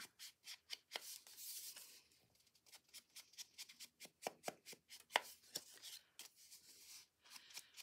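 A handheld distressing tool rubbed in quick strokes along the edges of a patterned-paper pocket: a rapid run of faint scratchy taps with a soft rubbing hiss, easing briefly about two seconds in.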